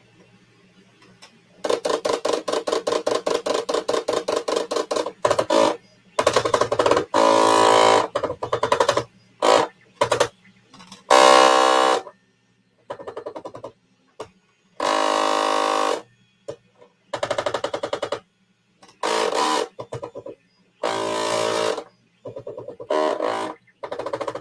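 A small 3D printer's stepper motors buzzing at changing pitches in short bursts that start and stop abruptly as the print head moves, with a fast run of rapid clicks a couple of seconds in. A steady low fan hum runs underneath.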